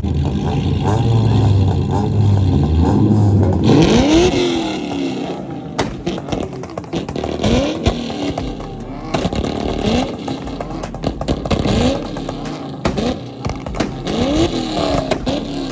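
A loud car engine, first a steady low drone at idle, then revved in a series of short blips from about four seconds in, the pitch rising and falling with each rev.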